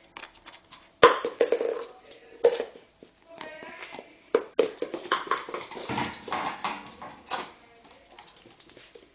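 West Highland white terrier puppy play-barking in short, high yaps that come in several bunches, with a sharp knock about a second in.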